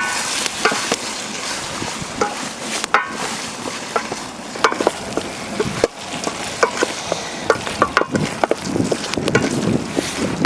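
Food frying in a pan and being stirred: a steady sizzle with many short clicks and scrapes of the utensil.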